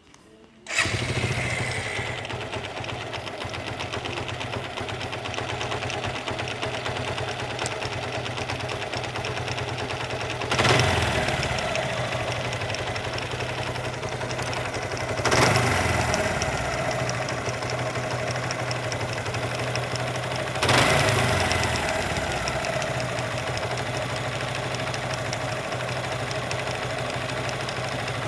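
Suzuki Gixxer single-cylinder motorcycle engine starting about a second in, then idling, blipped three times, with a 'katkat' clatter from inside. It sounds like parts touching or rubbing, which the mechanic thinks could be a broken bearing, after the clutch side was opened.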